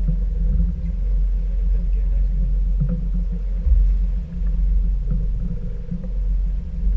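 Steady low rumble of a fishing boat's twin outboard motors running while the boat moves through the water.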